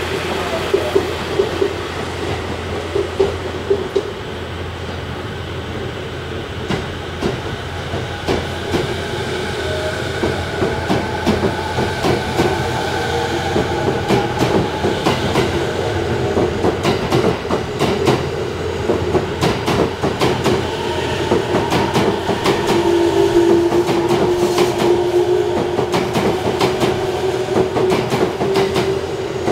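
JR 209 series electric multiple unit accelerating away and running past, with wheels clicking over the rail joints faster as it gathers speed and the traction motors whining upward in pitch.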